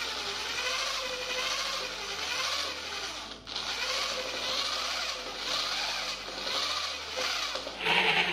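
Electric drill with a paddle mixer running in a bucket, churning thick paint as the violet stainer is mixed in. The steady motor and swishing dip briefly about a third of the way through, then carry on, with a louder surge near the end.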